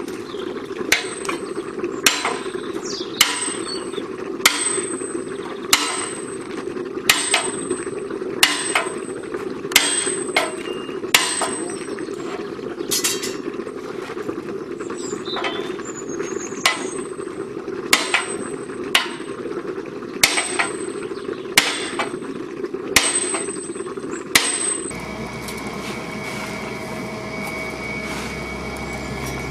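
Heavy hammer blows on a steel set bar held against the edge of a round steel firebox plate for a Sentinel steam waggon's boiler. The ringing metal clangs come about one every second or so over a steady low hum. The blows stop about three-quarters of the way through, and a steady mechanical drone with a held whine takes over.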